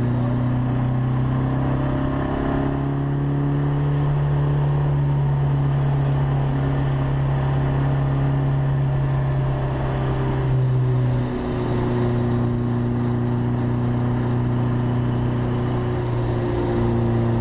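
Abarth competition car's engine heard from inside the cabin, pulling hard at high, nearly steady revs up a hill-climb stage. About 11 seconds in the note dips briefly, as at a quick gear change, and then carries on.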